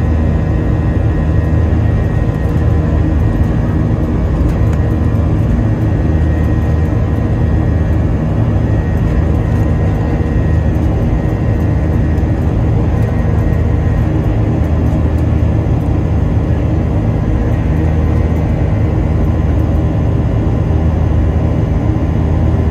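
Cabin noise of a Boeing 737-900ER in its climb after takeoff, heard at a window seat: the CFM56-7B turbofan engines at climb thrust give a steady low rumble with a few held whining tones above it.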